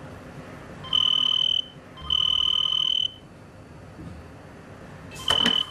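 Electronic telephone ringer trilling twice, the first ring shorter than the second; near the end a third ring starts and is cut off by clicks as the receiver is picked up.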